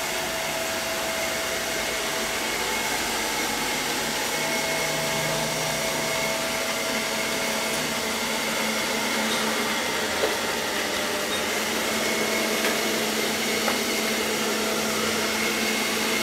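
ILIFE V5S robot vacuum running on a bare floor: a steady whir from its suction fan with a thin, high whine over it, and a few faint ticks about ten seconds in.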